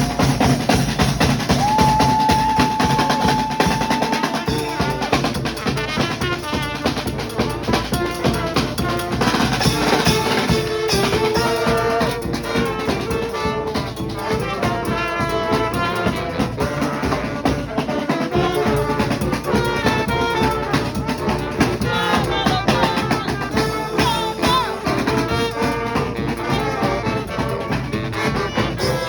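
Brass band playing live: trumpets and other horns over a drum kit, with one long held horn note a couple of seconds in, then moving melody lines.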